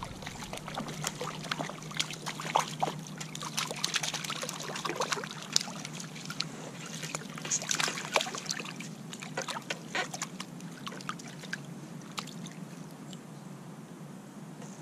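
Water splashing and trickling in many small irregular splashes, busiest in the first half, as a hooked trout is played at the surface and landed, over a steady low hum.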